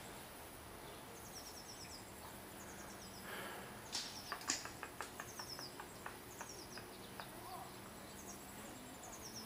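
Faint bird calls: short runs of quick, falling chirps repeated every second or so over low background noise. A handful of light clicks and taps come about four to six seconds in.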